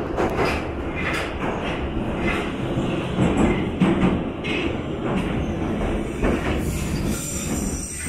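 St Petersburg Metro train running between stations, heard from inside the carriage: a steady rumble of wheels on the rails with irregular clacks. A faint high wheel squeal comes in near the end.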